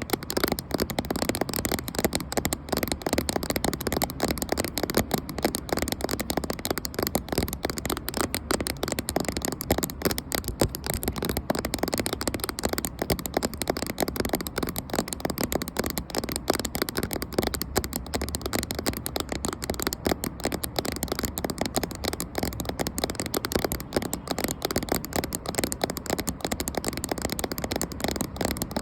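Fast, continuous tapping on a camera right at its microphone, many small taps a second without a break.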